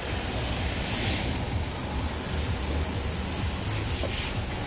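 Hyundai engine idling steadily on propane fed straight from a tank into the intake, because its in-tank fuel pump has failed; a low, even rumble.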